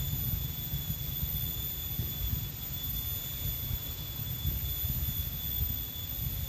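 Outdoor riverbank ambience: a steady high-pitched whine over an irregular low rumble.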